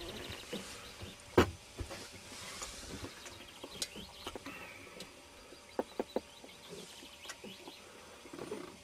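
Occasional knocks and clicks as food packets, a plastic cup and a plastic bottle are handled on a sailboat's cockpit table. The sharpest knock comes about a second and a half in, and a few quick clicks come near six seconds.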